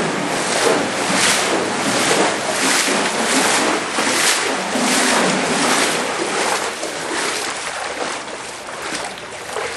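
Floodwater sloshing and rushing in a loud, steady wash, with rhythmic surges about every 0.7 s that ease off a little after about six seconds.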